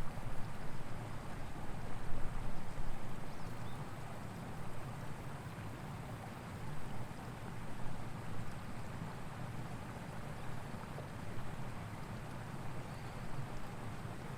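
Outdoor background: a steady rushing noise that swells and ebbs irregularly, a little louder in the first few seconds. No crossing bell or train is heard.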